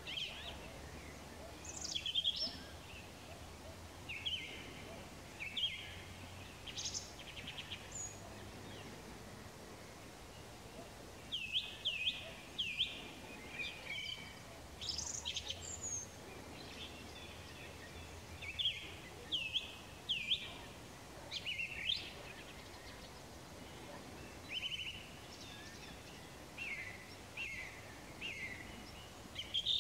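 Wild songbirds singing: short, high chirps and slurred whistled notes, one or a few every second or two, over a faint steady background hiss.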